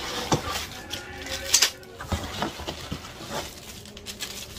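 Handling noise from a cardboard box being opened and rummaged through by hand: scraping and rustling with irregular sharp clicks and knocks, the loudest about a second and a half in.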